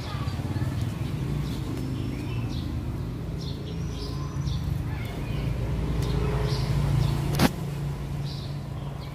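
Steady low buzzing hum of a dwarf honeybee colony clustered on its comb, heard close up, swelling louder toward about seven seconds in. A single sharp click follows just after, and birds chirp faintly.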